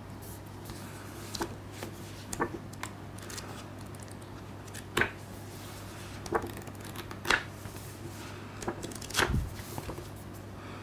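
Paper booklet handled in gloved hands: a string of crisp paper rustles and snaps as it is shifted and turned over, the sharpest about halfway and near the end, over a faint steady low hum.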